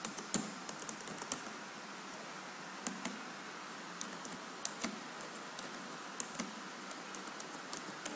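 Computer keyboard being typed on: irregular single key clicks over a steady background hiss.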